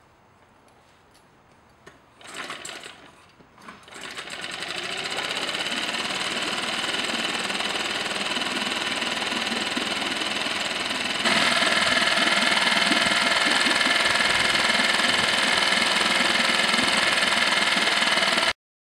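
Tohatsu 5 hp four-stroke outboard motor pulled on its recoil starter a couple of times, catching about four seconds in and then running steadily, louder from about eleven seconds in. The motor had been dead with a clogged carburetor and runs again after a carburetor cleaning.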